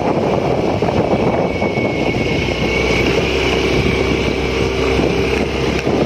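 Motorcycle running steadily while ridden along a rough dirt track, with wind buffeting the microphone.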